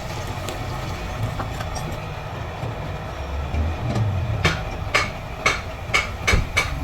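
A steady low rumble with a run of six sharp knocks, about two a second, starting a little past halfway; they sound like tool strikes during work on the car.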